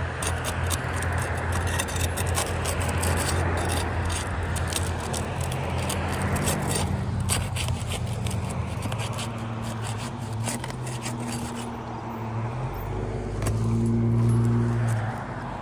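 Asphalt shingle's sealant strip being broken loose: repeated crackling and scraping clicks for most of the first twelve seconds, over the steady hum of a vehicle engine. A vehicle sound swells louder near the end.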